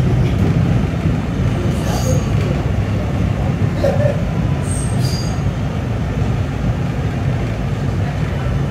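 R211S subway car running along the track, heard from inside the car: a steady low rumble from the wheels and running gear. Brief high-pitched wheel squeals come about 2 seconds and about 5 seconds in.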